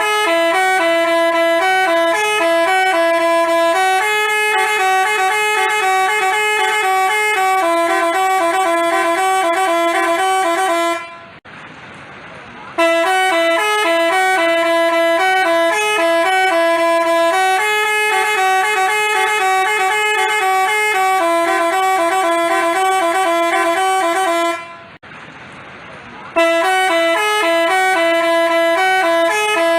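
Basuri 'telolet' musical bus horn playing a melody in short, clear pitched notes. The same phrase of about eleven seconds plays over and over, with a brief break about eleven seconds in and another near 25 seconds.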